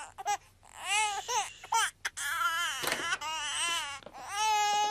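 Infant crying in three wailing stretches, the last one held longest. The baby is refusing to feed.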